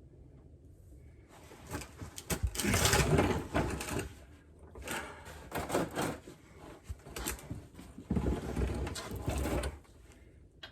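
Several bursts of clunking and rattling from rear-axle parts being worked by hand to check for play, with short pauses between the bursts.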